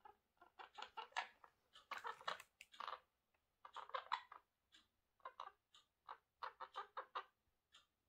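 Pet ring-necked parakeet chattering quietly to itself: quick runs of clicky, mumbled syllables in short bursts with brief pauses. This is the muttering talk it makes when something outside catches its attention.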